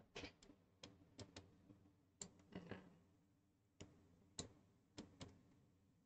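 Faint, scattered clicks of a computer mouse, about a dozen at irregular intervals, with a brief soft noise midway, over near-silent room tone.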